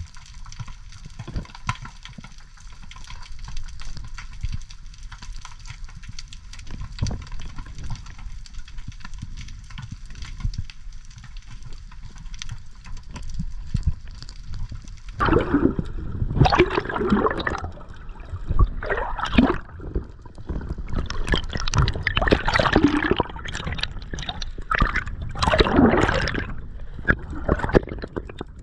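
Muffled underwater sound of water moving past a diver, turning to louder, irregular gurgling bubbles from about halfway.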